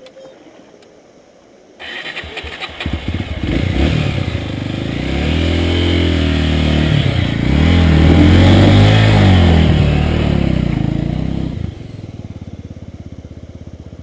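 A dirt bike's single-cylinder engine starts suddenly about two seconds in, then revs hard up and down as its rear wheel spins in the stream and throws up water. Near the end the revving cuts off to a quieter, steady running.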